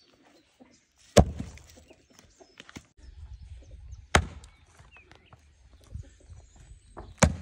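A heavy thud as a large log is set down on a stump chopping block, then two sharp axe blows into the log's end grain about three seconds apart.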